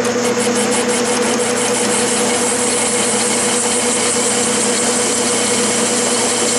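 Metal lathe running with a steady hum while a grooving tool plunge-cuts a groove into a turning V-pulley blank. A steady high cutting hiss builds after the first couple of seconds, with faint rapid ticking in the first second or so.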